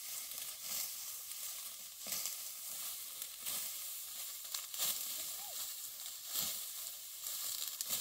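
Hand sickle cutting dry, ripe wheat stalks: a steady crackling rustle of brittle straw. A sharper swish-and-snap comes about every second and a half as each handful is cut.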